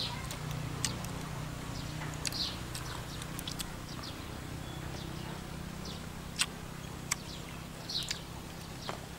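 Short high chirps, repeating every second or so, over a steady low hum, with a few sharp clicks scattered through.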